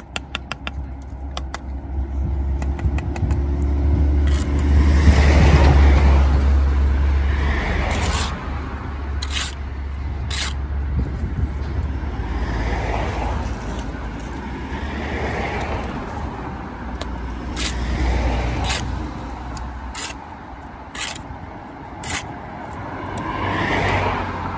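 Steel brick trowel scraping and tapping on wet mortar and brick while joints are worked in, with sharp clicks and repeated scraping strokes. A road vehicle rumbles past underneath, loudest about five seconds in.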